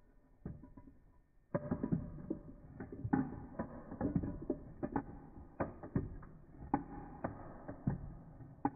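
Metal spoon stirring ice cubes in a tall glass, in a slowed-down recording: irregular clinks and knocks against ice and glass, each with a short ring, starting about a second and a half in after a single click.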